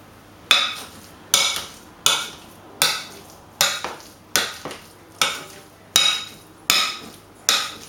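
Metal fork striking the inside of a glass bowl as a potato mixture is mashed and mixed. About ten sharp knocks, each ringing briefly, in an even rhythm of roughly one every 0.8 s.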